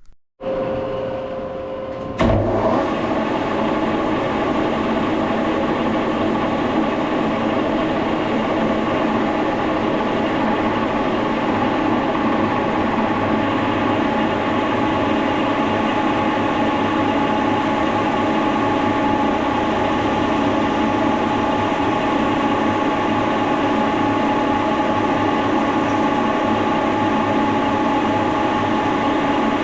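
Brown & Sharpe No. 2 milling machine starting up. Its motor comes on, then about two seconds in the drive engages with a sharp knock, and the machine runs steadily with a steady whine. It is drilling a 9/16-inch hole through tool steel.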